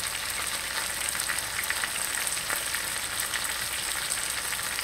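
Chicken and diced apples frying in a pan on the stove: a steady sizzling hiss with fine crackling pops.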